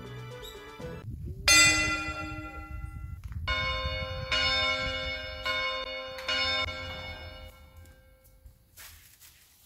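Church bells ringing: a loud first strike about a second and a half in, then four more strikes at slightly different pitches, each ringing on and dying away by about nine seconds.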